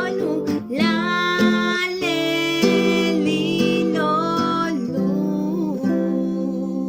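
Music: acoustic guitar strumming with a melody line over it, the instrumental close of a children's song.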